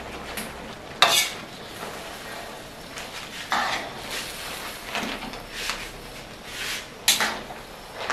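Metal spatula scraping and clanking against a stainless steel wok as wet-fried Aceh noodles are tossed and stirred, roughly once a second, the loudest stroke about a second in. A steady sizzle of the frying runs under the strokes.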